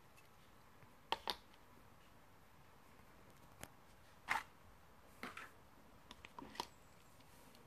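Scattered light clicks and knocks of a plastic toy pen being handled and set down on a cardboard board book, against quiet room tone: a pair about a second in, single clicks in the middle, and a quick cluster near the end.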